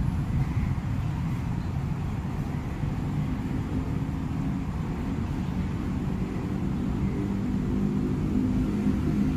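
Freight train of cement tank wagons rolling past, a steady low rumble of wheels on rails. A low steady hum joins about three seconds in and grows louder near the end.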